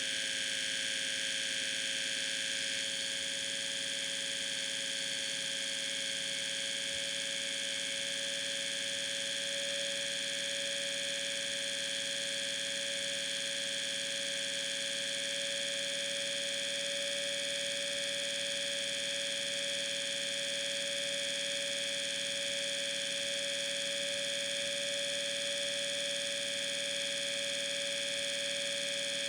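A steady, unchanging hum with a high whine over it, like a machine or electrical device running. The upper tones shift slightly about three seconds in.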